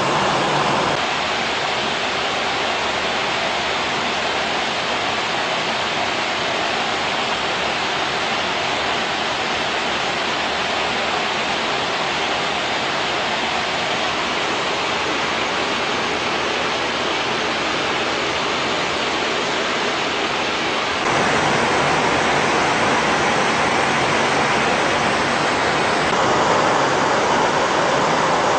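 Steady rushing noise with no tone or rhythm in it. It changes character abruptly about a second in, and again about 21 and 26 seconds in, where it gets louder.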